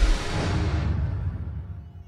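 A sudden deep booming hit with a whoosh, a cinematic transition sound effect, that fades away over about a second and a half.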